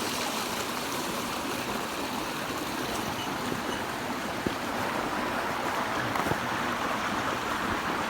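Steady rush of flowing water, like a stream running over rocks.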